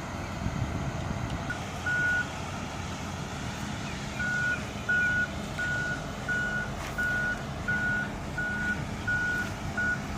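Backup alarm on heavy construction equipment: a single-pitched beep sounding a couple of times, then repeating steadily about every 0.7 seconds from about four seconds in, over the steady rumble of a diesel engine running.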